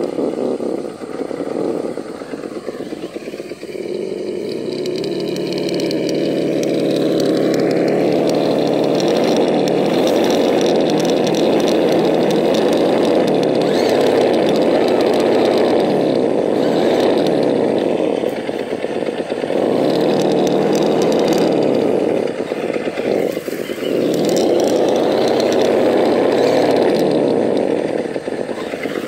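Electric motor and gearbox of a Vaterra Ascender 1/10-scale RC rock crawler whining under load as it climbs loose dirt. The pitch rises and falls with the throttle, easing off briefly a few times.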